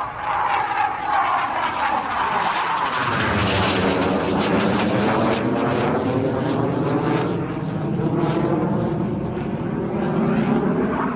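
BAE Hawk T1A jet trainer's single Rolls-Royce Turbomeca Adour turbofan running as the jet flies its display overhead. A whine falls in pitch over the first few seconds, then about three seconds in the jet noise grows deeper and fuller and stays loud.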